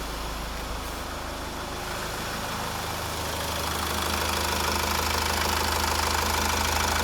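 Mazda Premacy's 2.0-litre diesel engine idling steadily, growing somewhat louder about three seconds in. It runs because its fuel pump relay, whose contacts are badly burnt, has been bridged with a 20 A fuse: the burnt relay was the cause of the crank-no-start.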